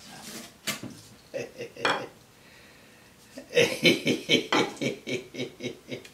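Thin wooden strips clattering and knocking against the metal top of a table saw as they are handled and stood upright, with a few sharp knocks and a busier run of light clatter in the second half.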